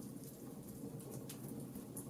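Wood fire in a fireplace crackling, with scattered sharp pops and ticks over a steady low background.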